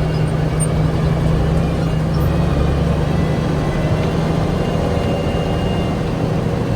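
1974 Kenworth log truck's diesel engine running steadily at low road speed, heard from inside the cab over the rumble of a rough gravel road.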